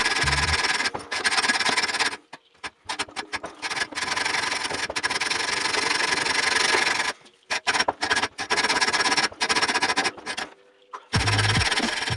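Hand hacksaw cutting through a workpiece held in a bench vise: a steady rasping of blade strokes that comes in runs, broken by short pauses about two seconds in, around seven seconds and near ten and a half seconds.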